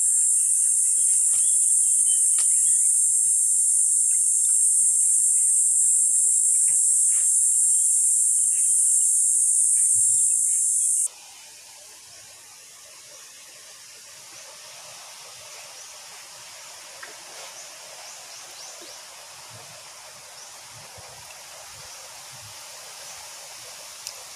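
A loud, steady, high-pitched drone of insects in chorus. It cuts off suddenly about eleven seconds in, leaving a much quieter even hiss with a few faint ticks.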